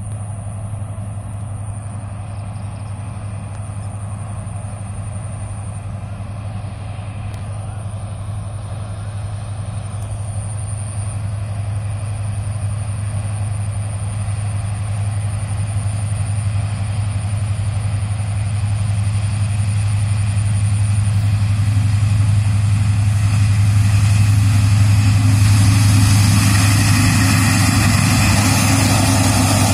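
Diesel-electric locomotive approaching at the head of a passenger train: a steady low engine drone that grows steadily louder, with rushing wheel-and-rail noise building over the last several seconds as it draws near.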